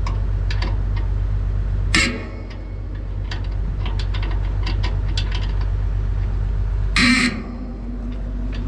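Excavator diesel engine idling with a steady low hum, over light clicks and taps of a spanner loosening a bolt on a steel tank saddle. Two short, loud, harsh bursts come about two seconds in and again near the end.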